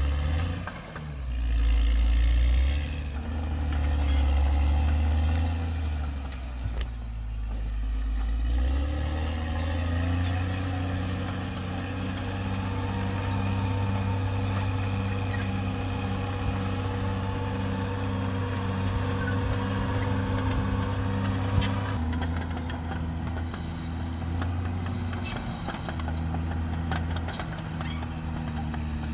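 Caterpillar D6R XL bulldozer's diesel engine running under load, its note shifting over the first few seconds and then holding steady with a faint whine above it. The sound changes abruptly about 22 seconds in.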